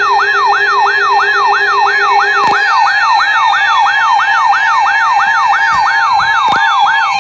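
Electronic siren in a fast yelp, its pitch sweeping up and down about three times a second, with steady tones and a fainter, faster sweep higher up.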